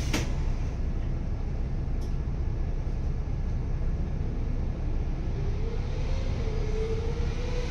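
City bus engine running at idle, a steady low rumble heard from inside the bus. About five seconds in, a rising whine joins it as the bus creeps forward in the traffic queue. There is a sharp click right at the start.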